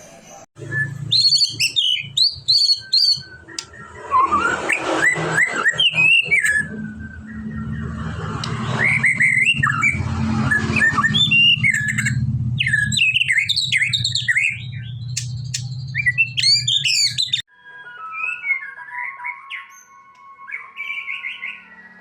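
White-rumped shama (murai batu) singing a loud, fast song of varied whistles and sweeping glides, over a steady low hum. Near the end it cuts abruptly to a quieter, different twittering song.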